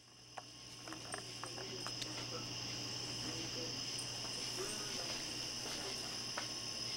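Night insect chorus of crickets trilling steadily and high-pitched, fading in over the first second, with a few faint clicks.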